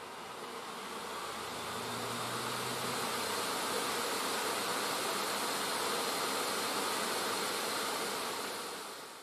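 Asus ROG Strix GL702ZC laptop's two cooling fans running flat out with a steady, loud whoosh and a faint high whine, growing louder over the first few seconds and fading out near the end. Both fans are stuck at 100% because the broken fan control no longer lets them slow down: the GPU sends a wrong temperature signal to the embedded controller.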